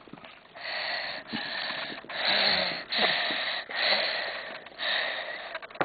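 A person breathing heavily and close: six loud, breathy breaths, about one a second.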